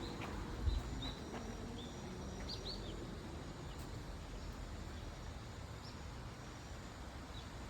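Outdoor ambience with a steady low rumble and a few short, high chirps from small birds, most of them in the first three seconds. There is a single dull thump under a second in.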